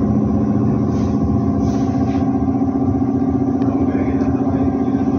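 Steady, loud machine hum at a fixed low pitch from a running motor. A couple of faint light clicks come near the end.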